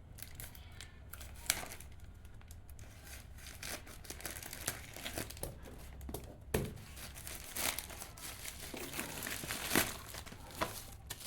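Packaging crinkling and rustling as it is handled, with irregular sharp rustles and clicks.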